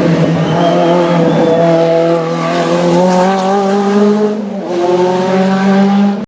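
Rally car engine at high revs under hard acceleration, holding a high, steady note with small pitch swings. It drops briefly about four and a half seconds in, a lift or gear change, and then pulls again.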